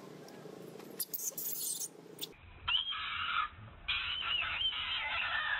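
Baby macaque crying in high, wavering squeals, in two bouts from about halfway through. This is a tantrum cry as its mother weans it off milk.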